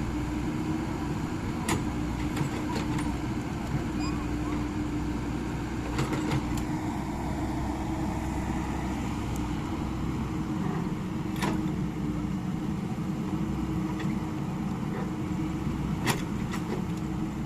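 Excavator's diesel engine running steadily, with a few sharp clicks or knocks scattered through it.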